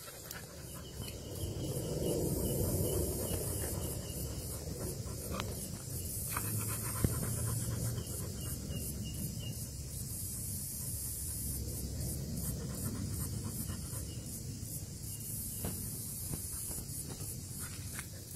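Low, uneven rumbling and rubbing noise on the microphone, with a steady high hiss above it.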